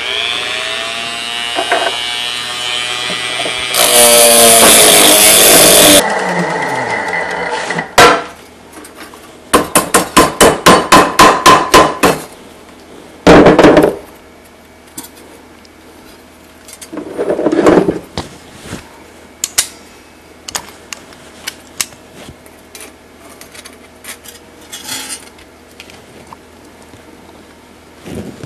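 A handheld rotary tool runs and grinds into metal, its pitch sinking as it bears down. Then a hammer strikes metal about ten times in quick succession, roughly four blows a second, followed by a short loud burst and scattered clinks of tools.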